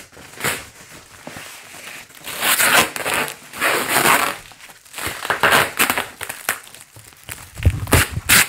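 Plastic-wrapped foam packing being handled and pulled apart, crinkling and rustling in several bursts. Near the end there are a few knocks as the package is bumped about.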